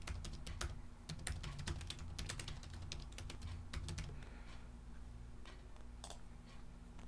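Quiet computer keyboard typing: a run of quick key clicks that thins out after about four seconds, over a faint steady low hum.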